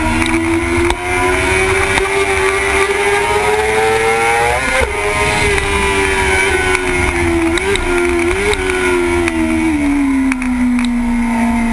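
Sport motorcycle engine heard from on board at track speed: the revs climb, drop sharply once about five seconds in as it shifts up, then fall away with two short blips of revs near eight seconds as it slows for a bend, and begin to climb again near the end. Steady wind rush over the microphone throughout.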